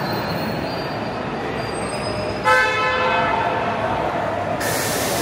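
Steady vehicle running noise with a short horn toot that starts suddenly about halfway through and fades within a second. A burst of hiss comes in near the end.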